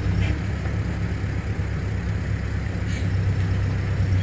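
Truck engine idling steadily, a low even running sound with no change in speed.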